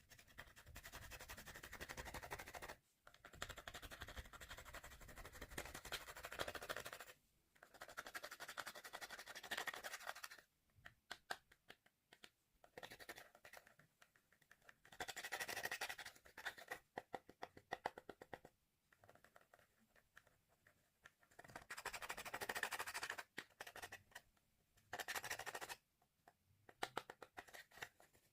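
Slime being mixed and squeezed by hand, giving dense crackling and clicking in spells of a few seconds, with sparser clicks and short pauses between.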